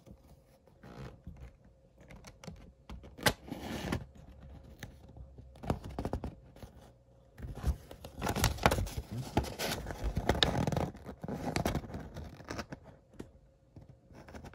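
A folded paper checklist leaflet being handled and turned over, rustling and crinkling in irregular bursts, busiest in the middle.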